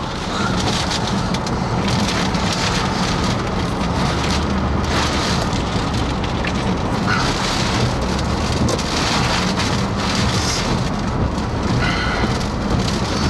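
Heavy rain and strong gusting wind from a tornado-producing storm, a loud, steady rushing noise that swells and eases with the gusts.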